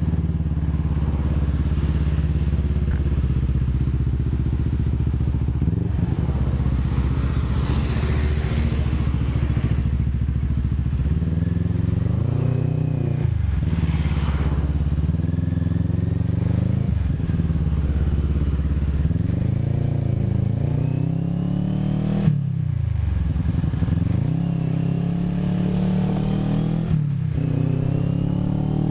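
CFMoto 400NK motorcycle's parallel-twin engine running under way, steady at first, then its pitch repeatedly dropping and climbing again as the rider shifts and accelerates through the second half.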